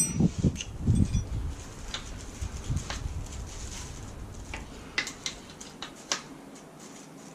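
Spanner working the rear-axle chain adjuster bolt on a motorcycle swingarm, turning it a little at a time: a few light metallic clicks spread over several seconds, after dull low knocks in the first few seconds.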